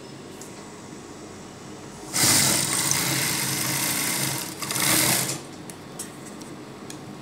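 Industrial single-needle lockstitch sewing machine running a seam through cloth for about two seconds, easing off briefly, then a second short burst of stitching.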